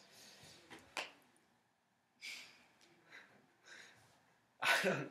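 A man laughing quietly under his breath: a few short breathy puffs, with a louder breathy burst near the end, and a couple of faint clicks in the first second.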